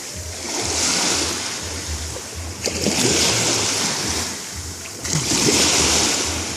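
Black Sea waves breaking and washing on the shore. Three surges of surf swell up and fade away, roughly every two and a half seconds.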